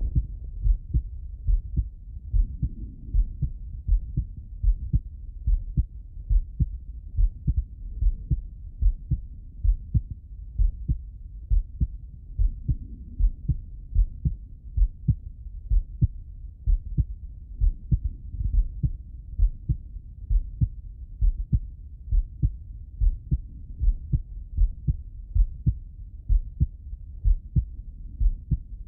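A man's heartbeat heard through the bell of a Littmann stethoscope: a steady, even train of deep lub-dub thumps with nothing high-pitched in it.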